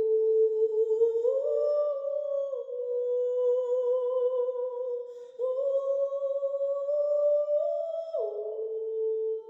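A single voice humming a slow melody in long held notes, stepping up in pitch about a second in and again midway, and dropping near the end.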